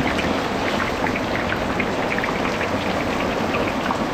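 Heavy rain falling steadily: a dense hiss with many small patters.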